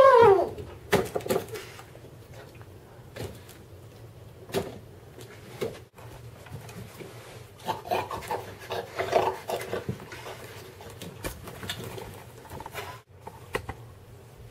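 A loud trumpeting call, like an elephant's, falls away in pitch within the first half-second, followed by a few sharp knocks on a table. Then a man grunts and snuffles like a pig eating with his face down at a plate, loudest about eight to ten seconds in.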